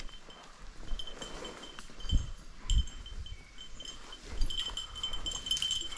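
Bird dog's collar bell jingling in irregular bursts as the dog works through the cover, with a couple of low thuds about two and three seconds in.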